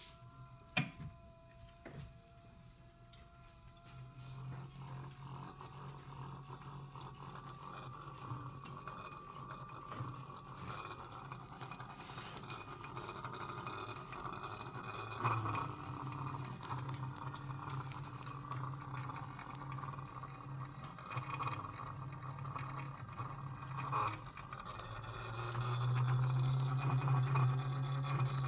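A 2016 BMW X6 (F16) with its engine switched off, making a steady mechanical hum that the owner finds strange. Two clicks come in the first couple of seconds. The hum sets in about four seconds in and grows louder near the end.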